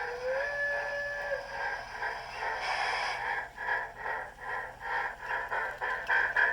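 Model steam locomotive's DCC sound decoder playing through its small speaker: a short whistle blast that slides up into pitch and holds for about a second, a brief burst of steam hiss, then exhaust chuffs starting up and quickening as the engine pulls away.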